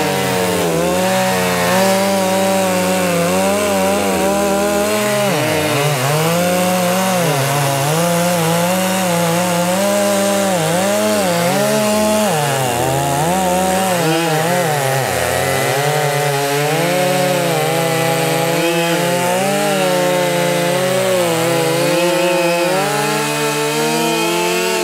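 Two large two-stroke chainsaws, a Stihl MS 881 and a Holzfforma G660 copy, cutting through an oak log at the same time at full throttle. Their engine pitch keeps dipping and recovering as the chains bite into the wood.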